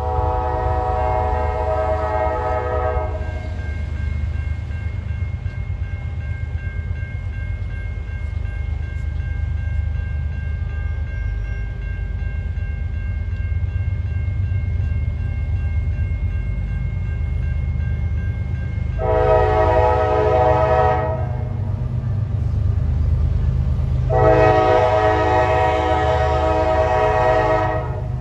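Train horn sounding three blasts over the steady low rumble of a passing train: one ending about three seconds in, a short blast near two-thirds of the way through, and a longer blast near the end. Each blast is a chord of several tones, as from a multi-chime air horn.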